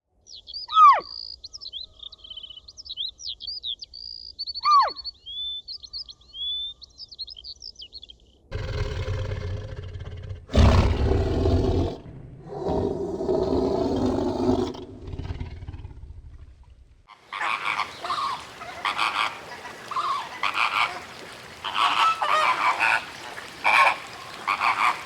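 A run of different animal calls in turn: high chirping calls for the first several seconds, then a louder low, rough sound, then a dense chorus of short repeated calls.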